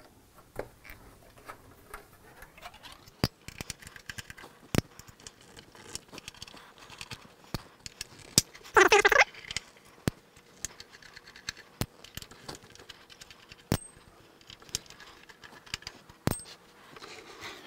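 Screws being backed out of a reflow oven's sheet-metal case with a small hand tool: scattered sharp metallic clicks and light rattling, with one louder, longer scrape about halfway through.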